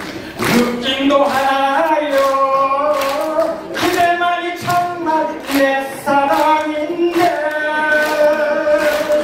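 A man sings unaccompanied into a microphone through a hall's PA, holding long, wavering notes. A sharp beat, like a clap, cuts in about once a second.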